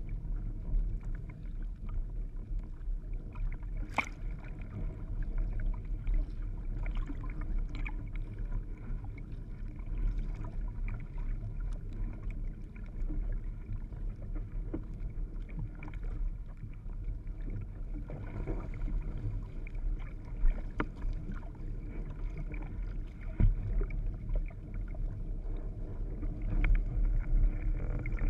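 Windsurf board sailing over choppy water: a steady low rumble of water rushing and slapping against the hull, with scattered small knocks and one sharp click about four seconds in.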